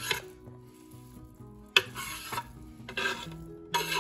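A knife scraping cubes of raw beef off a wooden cutting board into a ceramic slow-cooker crock, in a few short scraping strokes with a sharp knock about two seconds in. Soft background music plays underneath.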